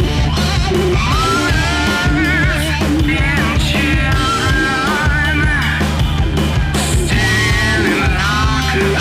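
Rock song demo with a sung lead vocal over a full band; the held sung notes waver with vibrato.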